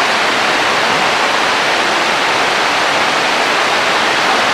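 A steady, loud rushing hiss with no breaks, clicks or tones.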